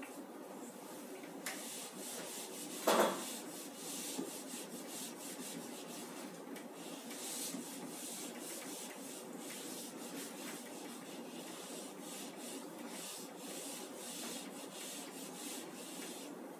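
Whiteboard duster scrubbing marker writing off a whiteboard in rapid back-and-forth strokes, a faint rubbing. A brief louder sound comes about three seconds in.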